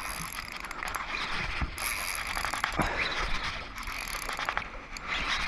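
Spinning reel being cranked, a continuous fine clicking and whirring from its gears, as a hooked fish is reeled in against a bent rod. Low wind rumble on the microphone underneath.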